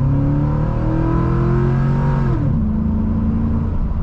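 Chevy 5.3 L V8 with an aftermarket 4-inch cold air intake accelerating hard, its engine and intake note climbing in pitch. The revs drop sharply about two and a half seconds in as it upshifts, then it pulls on at a lower, steady pitch.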